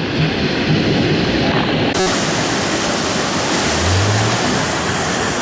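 Stormy sea surf: a loud, steady roar of breaking waves. A sharp click comes about two seconds in, after which the roar sounds brighter.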